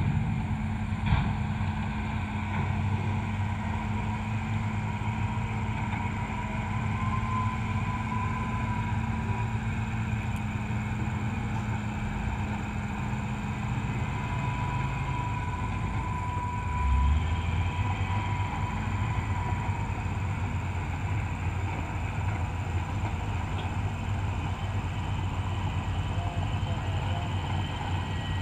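Diesel engines of heavy earthmoving machinery, an excavator and dump trucks, running steadily as a low rumble with a faint whine, and a brief low thud about seventeen seconds in.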